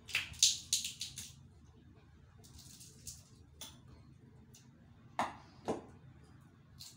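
Metal nutcracker and knife clicking and cracking the shells of fresh green almonds: a quick run of sharp metallic clicks, a short rustle, then a few single cracks.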